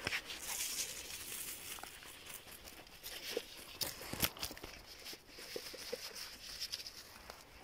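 Footsteps and brushing through dry grass, reeds and fallen leaves, with irregular crackling and a few sharp twig snaps.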